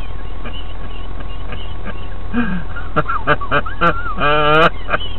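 A man laughing: faint chuckles at first, then a run of short bursts of laughter about three seconds in, ending in one longer drawn-out laugh near the end.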